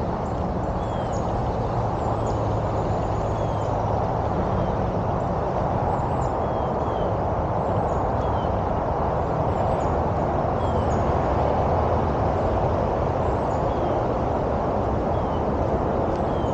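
Steady outdoor background noise, a continuous rumble without breaks. Over it, faint short descending bird chirps repeat every second or two.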